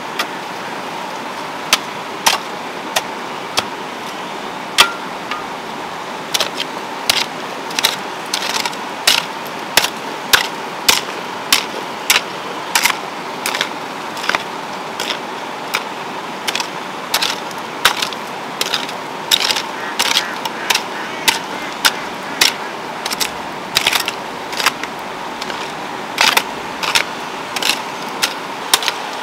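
Metal hoe chopping into stony garden soil: a string of sharp strikes, sparse at first and then coming about once or twice a second, over a steady background hiss.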